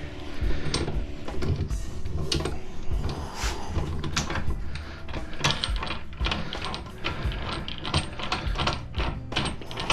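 Metal clicking and clanking of hand tools working loose the steel parts of an exercise machine: scattered knocks at first, then quick runs of clicks in the second half.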